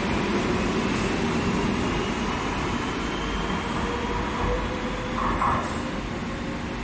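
Madrid Metro Serie 3400 electric train moving through the station: steady rail and running rumble with a faint motor whine slowly rising in pitch. A brief higher tone sounds about five seconds in.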